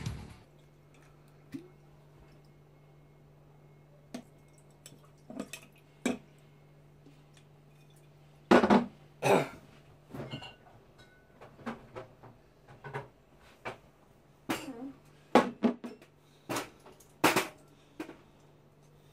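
Irregular clinks and knocks of glass bottles and glassware being picked up and set down on a bar counter while a gin and tonic is made, over a steady low hum.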